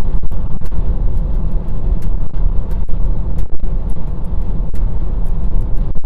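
A car driving: a steady low rumble of engine and road noise, with scattered sharp clicks throughout.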